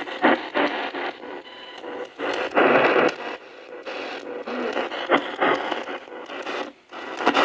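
Ghost box: a small AM/FM radio hacked with an Arduino sweep generator, scanning rapidly through the band. It gives choppy bursts of static and clipped radio fragments that break off every fraction of a second.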